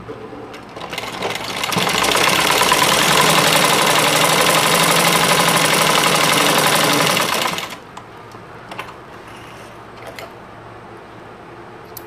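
Domestic sewing machine stitching. It builds up over about the first two seconds, runs steadily for about six seconds, then stops abruptly. It is sewing shut the opening in a waistband's elastic casing.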